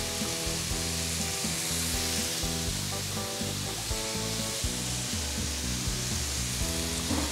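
Skewers of marinated beef sate sizzling in an oiled grill pan: a steady frying hiss. Background music plays underneath.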